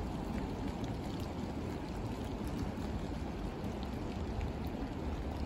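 Steady rain in a forest: an even rushing noise with faint, scattered ticks of drops.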